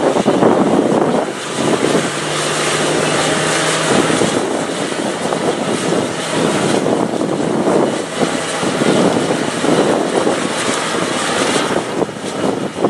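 Nissan Patrol Y60's turbo-diesel engine running hard at high revs under heavy load as the 4x4 climbs a steep muddy slope, the revs surging and dipping.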